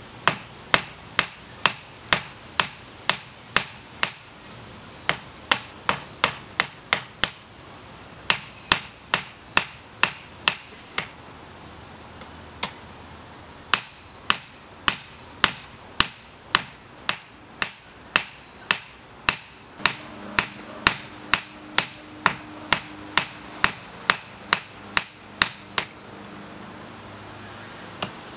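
Hand hammer forging red-hot coil-spring steel on an anvil: runs of quick blows, about two to three a second, each with a high metallic ring, with short pauses between the runs and a lone blow in the middle of one pause.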